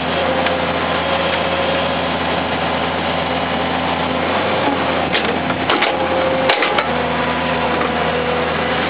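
Excavator engine running steadily, with a steady whine over it. A few sharp knocks and clicks come a little past halfway as the bucket and thumb let go of the shrub stems pushed into the mud.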